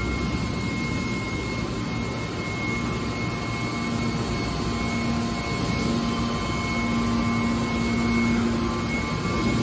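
Hydraulic scrap-metal baler's power unit running steadily: an electric motor and hydraulic pump hum with a thin high whine. A lower hum tone joins about four seconds in and grows stronger.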